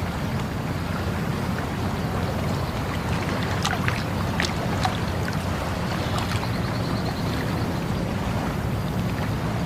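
Flowing water making a steady rushing sound, with a few short sharp clicks or chirps clustered between about three and a half and five seconds in.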